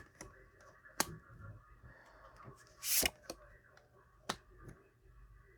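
Tarot cards being handled on a table: a short sliding swish and three or four sharp taps spread over a few seconds.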